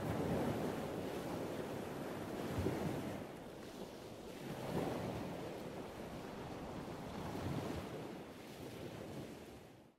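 Ocean waves washing in with wind, the sound swelling and easing every two to three seconds, then fading out at the very end.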